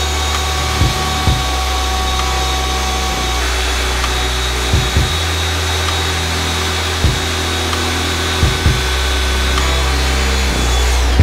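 Festool OF 1010 EBQ plunge router running steadily as it cuts along a wooden panel, a hissing whine that cuts off suddenly at the end. Background music with a bass line and kick drum plays underneath.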